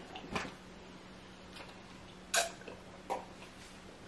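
Close-up eating sounds: three short, sharp wet smacks of chewing at uneven intervals, over a faint steady hum.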